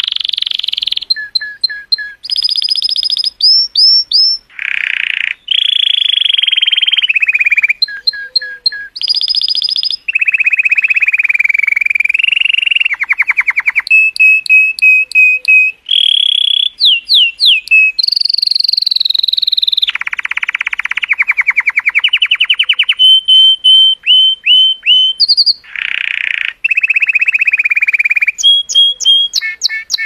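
Male colour canary singing a long, loud, continuous song. It runs through rapid trills of repeated notes and high whistles, switching to a new phrase every second or two.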